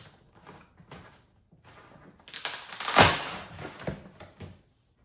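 Cardboard box and packaging of a baby high chair being handled and pulled open: scattered rustles, then a stretch of crinkling with a loud crunch about three seconds in.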